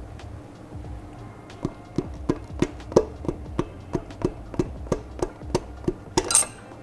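A quick run of sharp taps, about three a second, knocking a piston and connecting rod up out of its cylinder in a Renault 5 GT Turbo's 1.4-litre turbo engine block from the underside, each tap ringing briefly.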